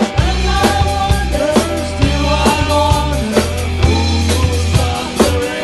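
Rock band playing live: drum kit, bass guitar, electric guitar and keyboards together, with a steady drum beat over a sustained bass line.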